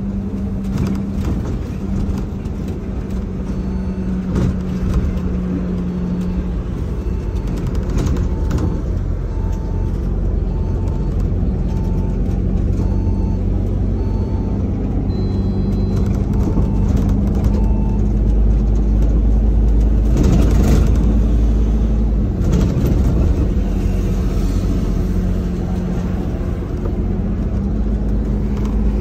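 Bus running in traffic, heard from inside the crowded passenger cabin: a steady low engine and road drone with a hum, rising louder as it accelerates about twenty seconds in. A run of short, evenly spaced beeps sounds through the middle.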